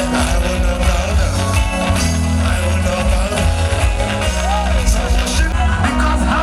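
Pop music with a singing voice over a heavy, steady bass.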